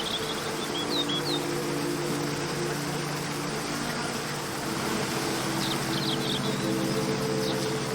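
Waterfall rushing steadily under a soft, sustained background music pad of low held tones. Short bird chirps come in about a second in and again twice near the end.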